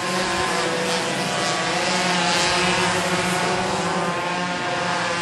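A pack of racing minimoto pocket bikes, small two-stroke engines, buzzing at high revs as they lap the circuit. The sound swells a couple of seconds in as the bikes pass closer, then eases back.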